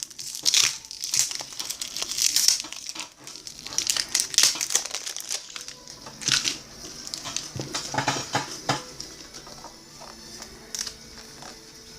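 Baseball cards being handled and flipped through: irregular crinkling, rustling and sliding strokes, busy at first and quieter after about nine seconds.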